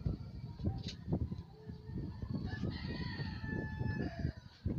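A long, drawn-out animal call in the background, rising and then held for about two seconds near the middle, over irregular low thumping.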